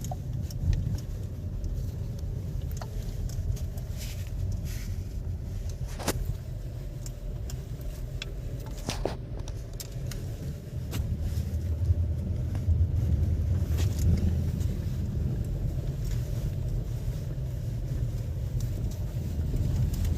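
Inside a moving car's cabin: steady low road rumble with scattered sharp clicks and ticks, the loudest about 6 and 9 seconds in. The clicks are rattling from the Volkswagen's door panels while driving, a fault that shows up in all the doors.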